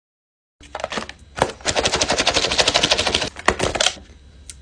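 A fork mixing food in a takeout grain bowl: a fast, loud run of clattering clicks and scrapes for about two seconds, with a few separate knocks before and after.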